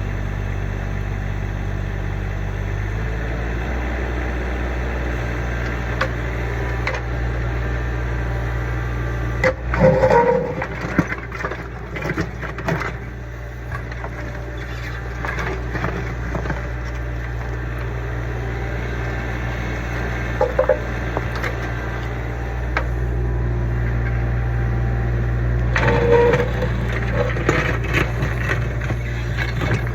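Kubota U25 mini excavator's diesel engine running steadily, picking up speed about three seconds in, with bursts of clanking, scraping and short metallic squeals from the digging, loudest about ten seconds in and again near the end.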